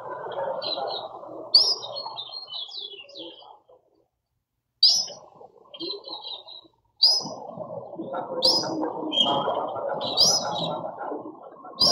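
Birds at a feeder calling: sharp high chirps about every one to two seconds, each followed by a short chattering run, over a low murmur of background noise. The sound cuts out briefly about four seconds in.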